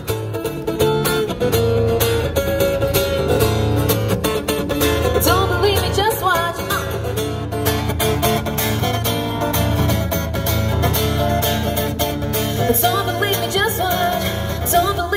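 Live guitar playing a pop song, with a singer's voice at times.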